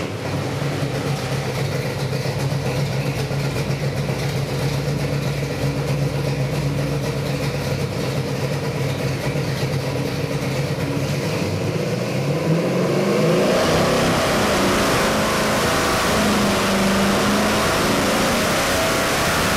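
Carbureted 501-cubic-inch Ford big-block V8, a 460 stroker, running steadily on an engine dynamometer at about 1,000 rpm. About thirteen seconds in it is loaded for a dyno pull, getting louder and rising steadily in pitch as it climbs past 3,000 rpm.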